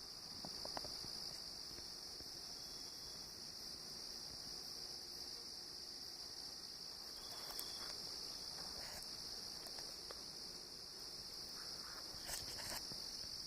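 Chorus of insects, crickets or similar, droning steadily at a high pitch without a break, with a few faint brief rustles.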